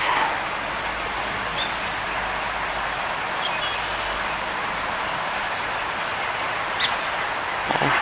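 Steady outdoor background hiss, with a few faint high bird chirps and a short high trill about a second and a half in. A single soft click near the end.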